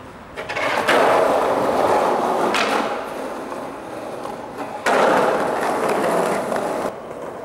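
Skateboard wheels rolling over concrete paving in two runs, each starting suddenly, the first about a second in and the second about five seconds in, with a sharp clack of the board between them.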